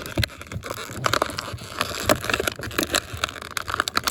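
Stiff plastic blister packaging crinkling and crackling in irregular sharp clicks as it is handled and cut open with scissors.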